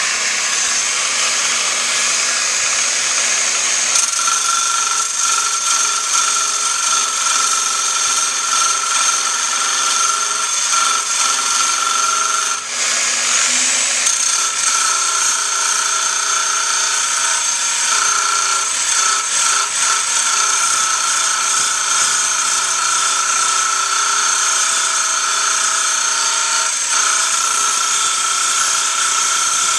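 Angle grinder fitted with a cutting wheel grinding the edge of a steel lawnmower blade to sharpen it. It runs steadily with a high whine over a grinding hiss, easing off briefly about twelve seconds in.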